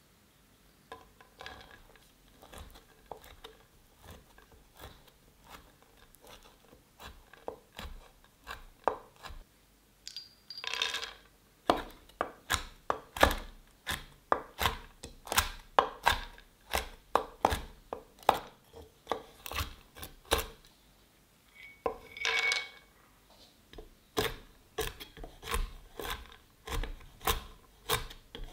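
Chef's knife chopping on a wooden cutting board: a steady run of knocks, soft for the first several seconds while dried cranberries are cut, then louder and sharper through pistachios and almonds. Twice there is a short clattering spell, about ten seconds apart.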